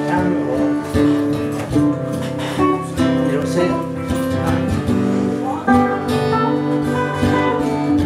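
Acoustic guitar strumming chords, with an electric guitar playing a lead line over it, without vocals.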